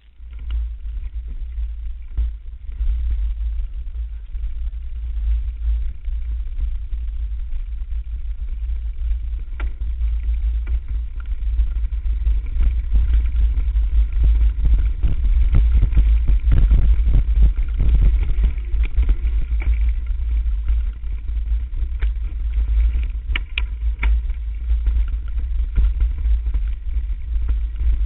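Mountain bike rolling fast down a dirt forest singletrack, heard from an onboard camera: a heavy low rumble of wind and vibration on the microphone with constant rattles and knocks from the bike over the bumpy trail, busiest and loudest about halfway through.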